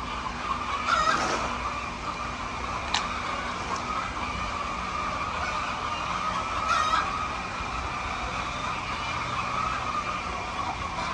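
Chickens calling briefly, about a second in and again near seven seconds, over a steady high-pitched whine, with a single sharp click about three seconds in.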